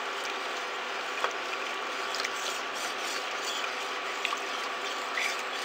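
Plastic spatula stirring undissolved borax powder into hot water in a stainless steel pot: a steady gritty scraping with scattered small clicks as the spatula and grains rub the pot. This is the stage of dissolving borax toward a saturated solution, before it clears.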